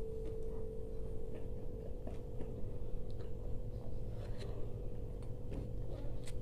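Small irregular crunches and clicks of someone eating dahi golgappa, the crisp puri shells filled with curd breaking in the mouth, over a steady faint hum.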